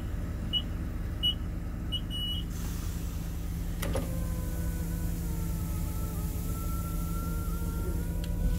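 Car wash code keypad beeping at each key press, five short beeps in the first couple of seconds, over the steady idle of a GMC Savana cargo van's engine. About four seconds in, a click, then a steady electric motor whine starts and keeps running.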